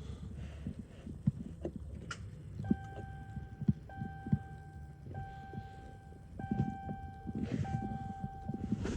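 An electronic warning chime, one steady tone repeated five times about once a second, starting about three seconds in. Scattered low knocks and handling noise run underneath.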